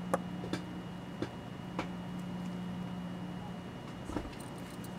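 Several small, sharp clicks of a watchmaker's screwdriver working the screw that holds the date and day fingers on a Seiko 6138 chronograph movement, over a steady low hum.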